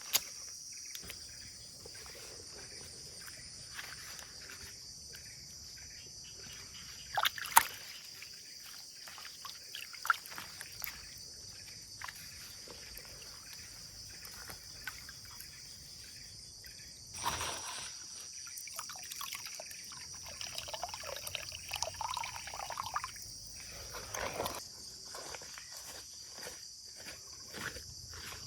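A steady, high-pitched chorus of insects, with scattered knocks and clicks of handling and some trickling, pouring water, busiest for a few seconds past the middle.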